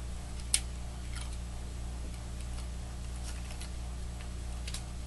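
Light clicks and taps of thin glass mirror strips being handled and set against each other on a stone work surface. The sharpest click comes about half a second in, with scattered fainter ones after it, over a steady low hum.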